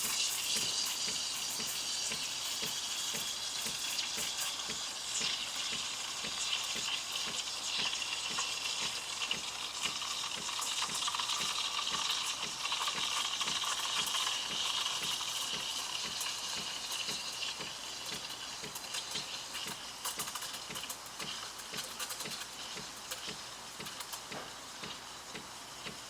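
Espresso machine steam wand hissing and crackling in a pitcher of milk as the milk is steamed and frothed, a steady hiss that fades gradually toward the end.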